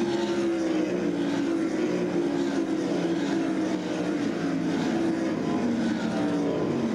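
Winged dirt-track sprint cars' V8 engines running at race speed, a loud steady drone whose pitch bends slightly as cars pass.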